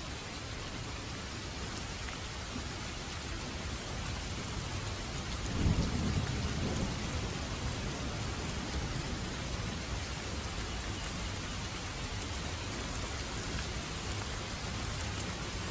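Steady rain falling, with a roll of thunder rumbling up about six seconds in and fading away over the next couple of seconds.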